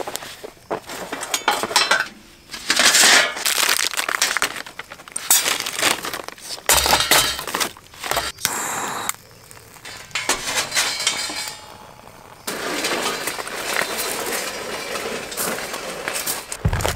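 Lumps of charcoal clinking and clattering as they are dropped by hand into a stainless steel charcoal chimney starter, in irregular bursts. A steadier noise takes over for the last few seconds.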